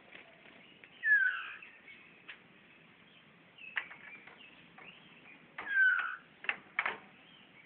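A murai songbird calling: two short whistled notes that slide downward, about a second in and again near the end, with a few sharp taps and clicks between them.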